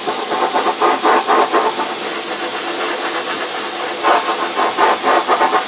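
Sandblast cabinet gun blasting worn, fine aluminum oxide grit onto a plastic taillight housing at reduced pressure, in the 50s psi. A steady, loud hiss of air and grit, rougher in places where it swells and eases.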